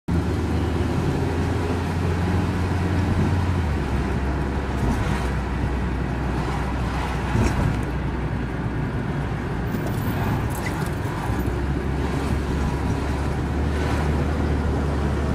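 Steady road and engine noise of a car driving, heard from inside the cabin: a continuous low rumble.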